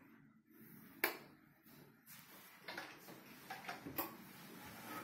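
Faint clicks and light knocks: one sharp click about a second in, then a run of small, irregular knocks and rustles through the second half.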